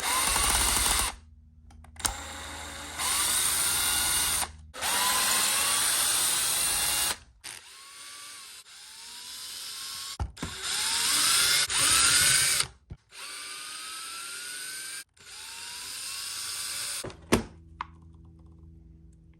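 Cordless electric screwdriver or drill running in about seven short bursts, each spinning up with a rising whine, as screws are driven out of a 1/10-scale RC truck's chassis.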